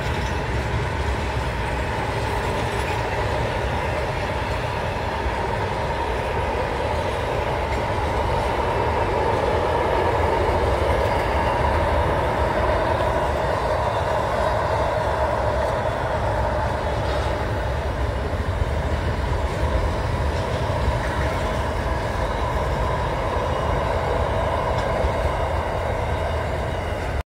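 Freight train of container wagons rolling across a railway bridge: a steady rumble and rattle of wheels with a humming tone running through it, a little louder about ten seconds in.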